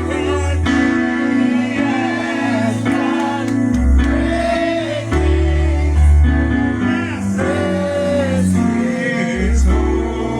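Gospel music: singing over sustained keyboard chords and a bass line.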